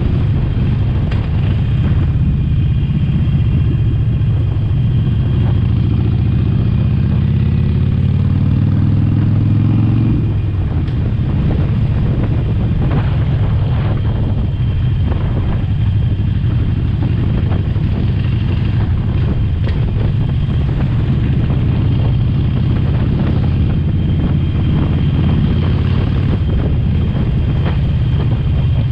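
Harley-Davidson Sportster Forty-Eight's air-cooled 1200 cc V-twin running on the move. Its pitch climbs for a few seconds, drops abruptly about ten seconds in, then holds steady.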